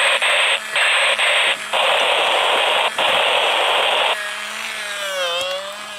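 A toy crawling action figure's electronic sound chip playing bursts of radio static through a small tinny speaker, in several blocks with short breaks. About four seconds in the static stops and a quieter warbling, sweeping electronic tone takes over.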